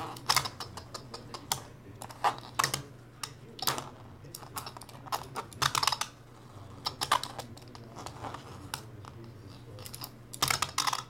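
Irregular sharp clicks and taps of a metal utility knife being handled and set down on a tabletop, with a steady low hum underneath.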